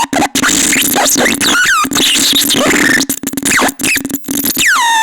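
Catastrophone electronic noise instrument putting out harsh noise. Pitched tones glide up and down over a steady low drone, with many abrupt cut-outs, and a long falling glide settles into a held tone near the end.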